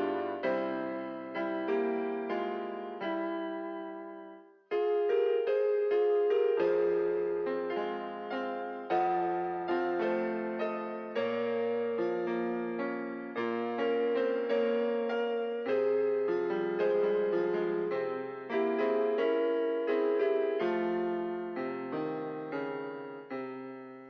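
Slow keyboard music with a piano-like sound: notes and chords struck every second or so and left to fade, with a brief pause about five seconds in.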